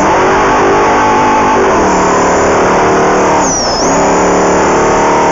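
Off-road race vehicle's engine running at steady high revs over a rush of road and wind noise; about three and a half seconds in the revs drop briefly, then climb back.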